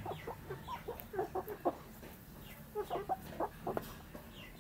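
Chickens clucking softly while feeding, in two runs of quick short clucks with a pause between them.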